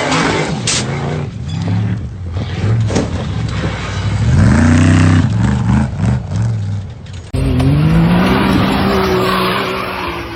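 Off-road 4x4 engine revving hard in repeated surges, its pitch climbing and falling, loudest about halfway through; about seven seconds in the sound cuts abruptly to another engine revving.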